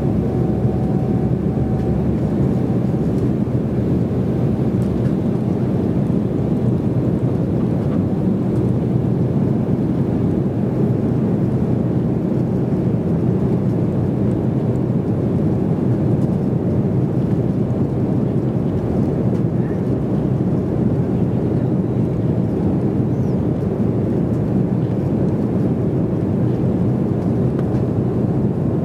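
Steady cabin noise of an Embraer E190 in its climb: the two GE CF34-10E turbofans and the airflow over the fuselage, an even, low rumble. A faint steady tone fades out in the first few seconds.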